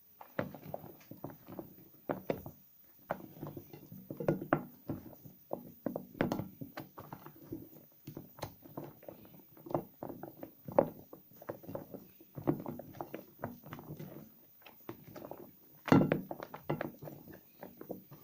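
Hands lathering and squishing soaked soap scraps: an irregular run of soft wet squelches and clicks, the loudest one near the end.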